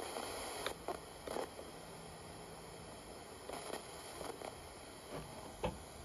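Homemade FM radio with a TEA5767 tuner module being tuned across the band between stations: faint hiss broken by a string of short scratchy bursts and ticks.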